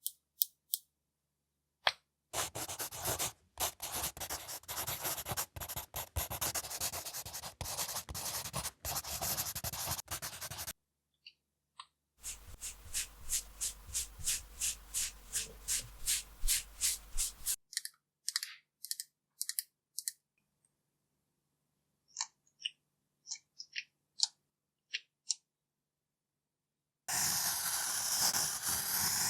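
Close-miked ASMR makeup-tool sounds on a mannequin head. There is dense scratching and rubbing, then a run of even strokes at about three a second, then scattered light taps, and near the end a steady hiss starts.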